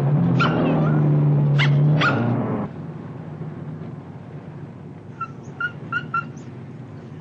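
A loud, low, steady drone cuts off suddenly about two and a half seconds in. Then a dog gives a quick run of about five short, high whimpering yelps, like a frightened dog.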